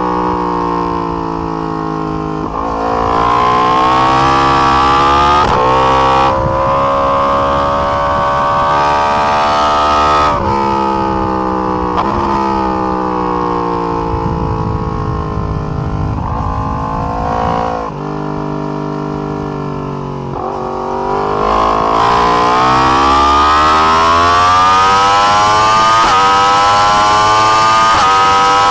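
2020 Yamaha R1's crossplane inline-four engine at speed on track, its pitch rising as it accelerates and falling off as it slows, with sudden jumps at each gear change. It climbs steadily through the last several seconds.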